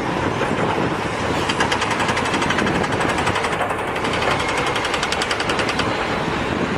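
Steady mechanical rattling noise of a dump truck, with a fast, even clatter setting in about a second and a half in.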